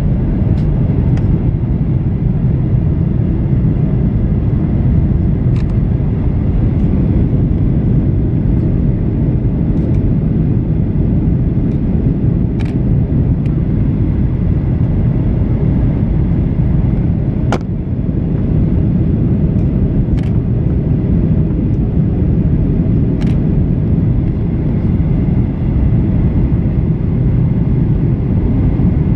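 Steady low roar of a Boeing 737-800 in flight, engines and rushing air, with a few faint clicks.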